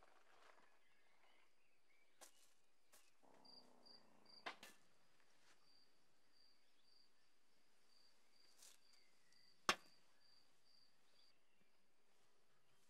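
Near silence with faint high insect chirping, a string of short regular pulses starting about three seconds in and stopping near eleven seconds. A few sharp clicks, the loudest near ten seconds.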